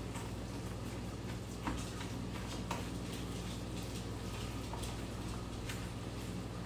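Spatula stirring and scraping a cheese and ground beef mixture in a plastic bowl: a few faint scrapes and clicks over a steady low hum.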